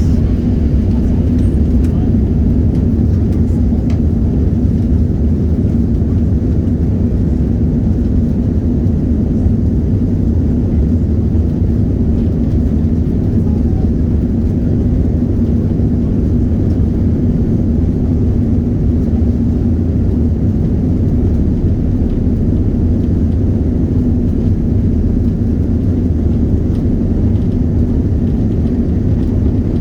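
Steady jet airliner cabin noise from a Boeing 737 in flight: an even low rumble with a constant hum through it.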